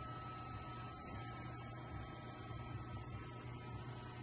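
Steady low electrical hum with a faint high steady tone over it, without change.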